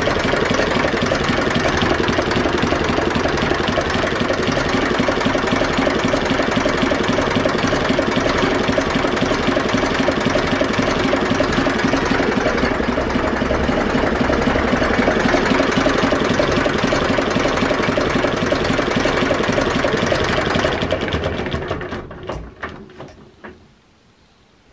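Zetor 4911 tractor's diesel engine ticking over nicely and steadily after being warmed up. About 21 seconds in it is shut off: the sound falls away through a few last separate beats and stops near the end.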